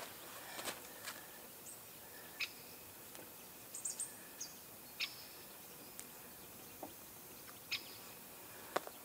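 Scattered short, high-pitched bird chirps over a faint steady outdoor hiss, with a few small sharp clicks and taps from hands working a hook out of a fish on a mat.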